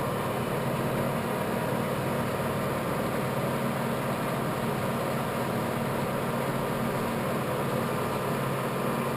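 Clausing Colchester geared-head lathe running steadily with its spindle turning forward: a steady machine hum with several steady tones from the headstock.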